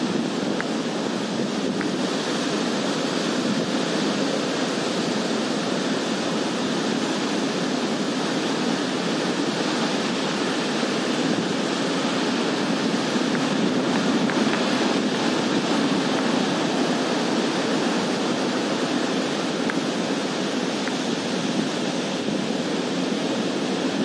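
Sea surf breaking on the shore in a steady, continuous wash, with some wind noise mixed in.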